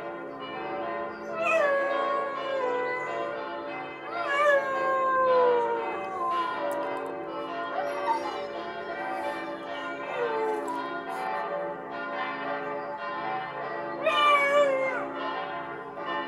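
Siberian husky howling along with ringing church bells: several long howls, each sliding down in pitch, over the steady peal of the bells.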